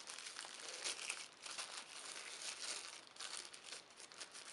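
Small plastic bag crinkling in the hands as it is worked open: a faint, irregular crackle of many small ticks.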